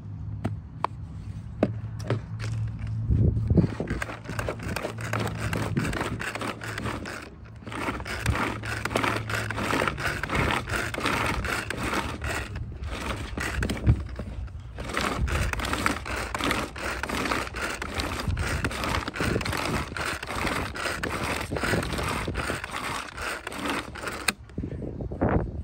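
Pull-cord manual food chopper being worked with repeated pulls, its spinning blades scraping and clattering through fried chicken with its crispy crust and chunks of apple, onion and celery. The chopping stops briefly a few times and ends shortly before the end.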